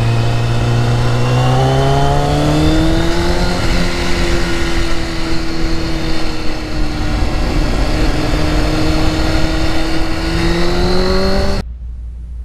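Motorcycle engine running under way, its pitch climbing in the first few seconds as it accelerates, then holding steady before climbing again, over wind and road noise. Near the end the sound cuts off abruptly to a quieter low rumble.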